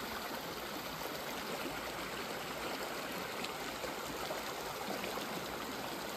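Shallow mountain stream running over stones with a steady rushing babble.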